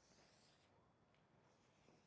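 Very faint strokes of a felt-tip marker writing on chart paper, one about half a second long near the start and another beginning near the end, in near silence.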